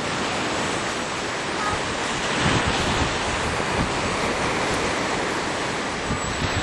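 Wind buffeting the microphone: a steady rushing noise with low rumbling gusts that grow stronger about two and a half seconds in.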